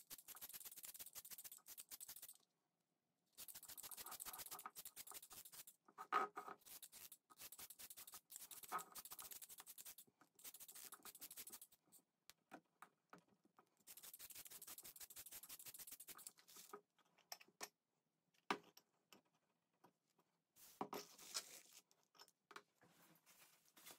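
Faint handling noise from gluing with a hot glue gun: rapid small clicks and scratching, with a few light knocks.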